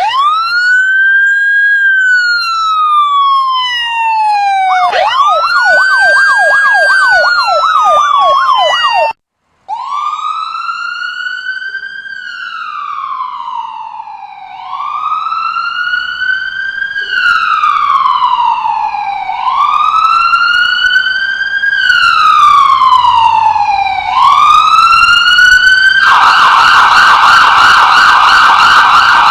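Electronic emergency-vehicle siren wailing in slow rising and falling sweeps, with a rapid yelp over the wail partway through. It cuts out briefly and starts again with quicker wail cycles about every two and a half seconds, then switches to a fast yelp near the end.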